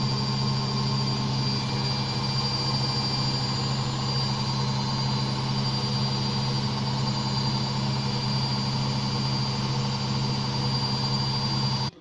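Beko 6 kg front-loading washing machine in its final high-speed spin: the drum motor runs with a loud, steady hum and a thin high whine, cutting off suddenly near the end as the spin finishes.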